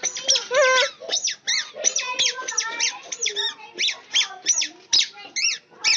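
A rapid series of short, high squeaky animal-like cries, each rising and falling in pitch, about two or three a second.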